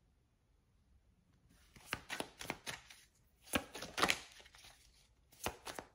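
Deck of oracle cards being shuffled by hand, overhand, with a run of quick, irregular slaps and flicks of card against card starting about a second and a half in.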